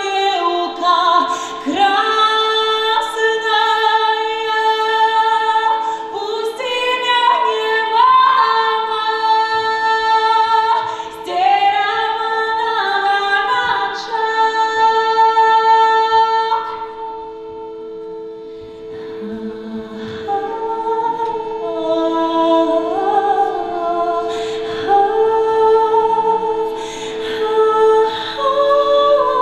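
A woman's solo voice singing a Belarusian folk song in long, bending held notes, over a steady two-note drone from a hand-pumped shruti box. The voice drops quieter for a few seconds past the middle, while the drone keeps sounding.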